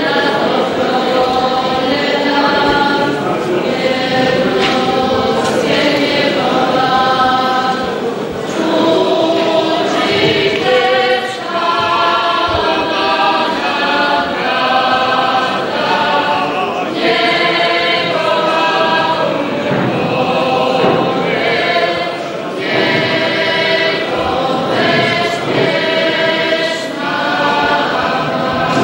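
Church choir singing, long held notes in phrases with short breaks between them.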